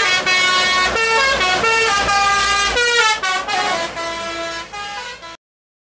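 Bus's multi-tone musical air horn (telolet horn) playing a quick run of changing notes like a tune, then cut off suddenly about five seconds in.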